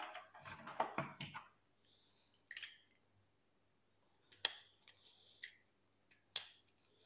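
Small copper pipe cutter being worked around a short length of copper pipe, giving a few separate metallic clicks and short scrapes.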